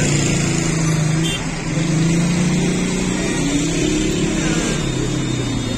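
Street traffic: car engines running and driving past close by, a continuous drone that slowly rises and falls in pitch.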